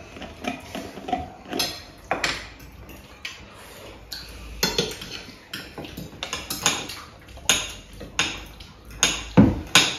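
Knives and forks clinking and scraping on dinner plates as several people eat, in irregular short clicks, the loudest near the end.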